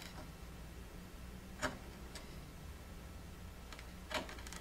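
A few faint short ticks and scrapes of a small carving gouge paring the last waste from a keyhole mortise in hardwood, spaced irregularly about a second or two apart.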